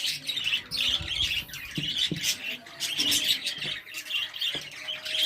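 Small pet cage birds chirping and squawking repeatedly, with a few soft knocks mixed in.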